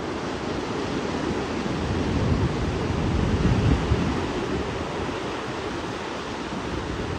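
Surf breaking and washing up a sandy beach, with wind buffeting the microphone; the rush swells a couple of seconds in as a wave breaks, then eases.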